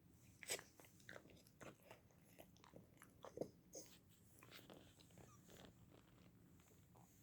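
Faint, irregular wet clicks and smacks of a beagle puppy's mouth chewing and lip-smacking, with two slightly louder smacks, about half a second in and a little past the middle.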